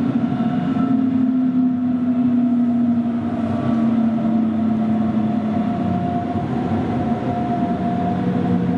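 Interior running sound of a Hamburg S-Bahn class 474 electric multiple unit under way: a steady rolling rumble with an electric motor hum whose pitch sinks slowly and steps lower near the end.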